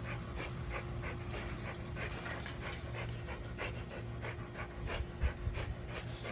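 A dog panting rapidly and evenly, about three breaths a second.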